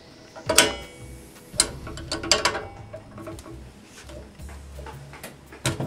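Steel wrenches clinking against each other and against the pump's bulkhead filter fitting as a torque wrench and a 5/8-inch open-end wrench are set on it and the fitting is tightened. It is a handful of separate sharp metallic clicks and knocks, the loudest two about half a second and a second and a half in, and another just before the end.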